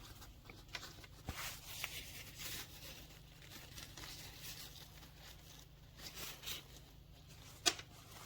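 Rustling and handling of a soft fabric hair-dryer bonnet, in scattered bursts, with a small knock about a second in and a sharp click near the end.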